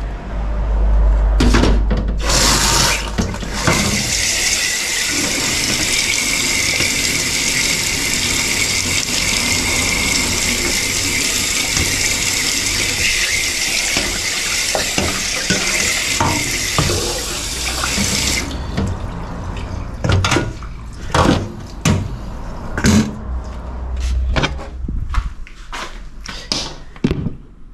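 Kitchen tap running hard into a stainless steel sink while a metal bowl is rinsed under it; the water shuts off abruptly about two-thirds of the way through. A string of sharp knocks and clatters follows.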